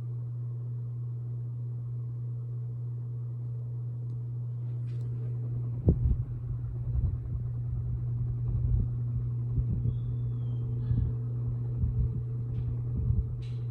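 Hampton Bay Minuet II ceiling fan running with a steady low motor hum. From about six seconds in, irregular low rumbling thumps join it.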